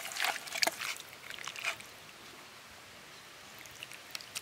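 A hand squishing raw prawns through a wet marinade of chilli powder, turmeric, salt and lemon juice in a steel bowl: irregular wet squelches and clicks for the first couple of seconds, then quieter, with a few sharp clicks near the end.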